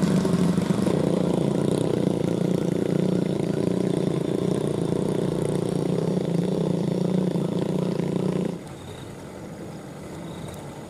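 Vehicle engine running steadily at an even pitch. About eight and a half seconds in it cuts off abruptly and gives way to a much quieter, steady engine hum.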